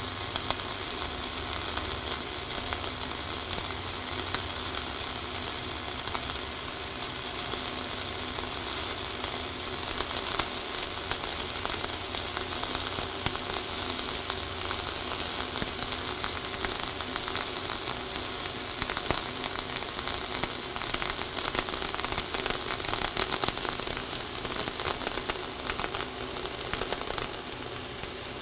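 Flux-cored wire-feed arc welding on a vertical joint: the arc keeps up a steady, fast crackle, and it cuts off at the very end.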